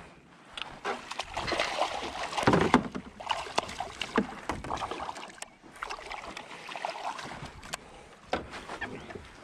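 A hooked largemouth bass thrashing and splashing at the surface beside a small boat, with water sloshing against the hull; the heaviest splashing comes about two seconds in. Short clicks and knocks of rod and landing-net handling follow.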